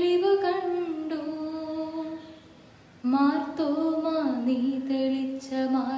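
A young woman singing a Malayalam devotional song solo with no audible accompaniment. She holds a long note that fades out about two seconds in, then after a short pause begins a new phrase.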